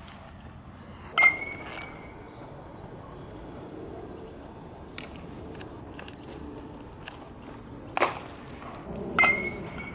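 Baseball drill: an aluminum bat pings twice as it hits a baseball, once about a second in and again near the end, each hit leaving a short ringing tone. A sharp pop of a ball into a leather glove comes just before the second hit.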